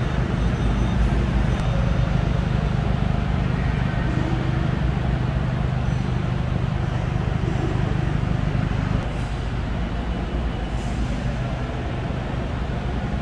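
Steady low rumble and hum of a large factory hall's background noise, dropping a little in level about nine seconds in.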